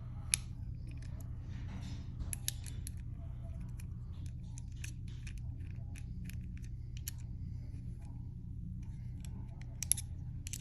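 Small metal clicks and light scraping as a small screwdriver works the screws holding the blade on a Babyliss FX3 hair trimmer, with the parts handled in between; the two loudest clicks come just after the start and near the end, over a steady low hum.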